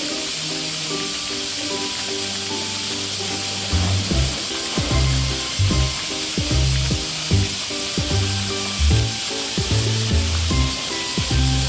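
Steady hiss of water spray falling onto a pool, under background music: a light melody, with a bass beat coming in about four seconds in.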